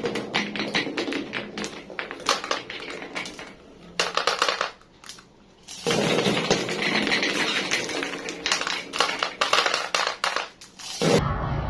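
Glass marbles clacking and rattling as they roll and drop through a marble run, in dense bursts of clicks with a brief lull about five seconds in. Near the end the clatter stops abruptly and a steady low rumble takes over.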